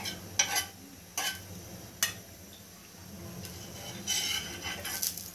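A few sharp clicks of a metal spoon on an iron dosa tawa as oil is spread over the hot pan, with a soft hiss about four seconds in.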